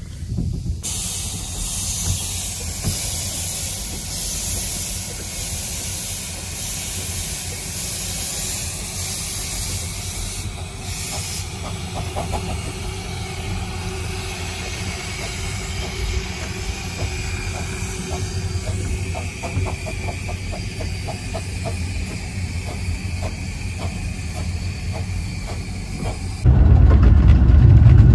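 Miniature-gauge steam locomotive standing in steam, letting off a steady loud hiss over a low rumble. Near the end it cuts to the louder low rumble of the train running.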